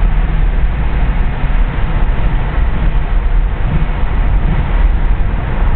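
A car driving at speed, heard from inside the cabin: a steady, loud rumble of engine, tyres and wind, heaviest in the low end.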